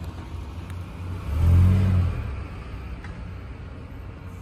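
A car passing close by: a low engine rumble swells about a second in and fades away a second later, over a steady hum of outdoor traffic.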